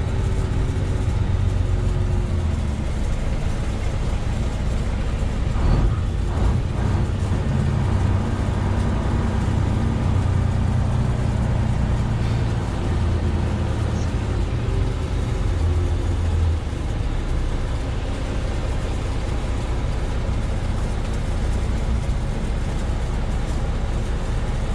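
Steady diesel engine drone and road noise heard inside a semi-truck's cab while it drives along.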